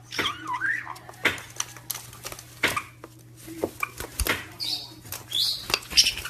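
Pet parrot calling: a short warbling call near the start and several high chirps later, mixed with sharp clicks and taps.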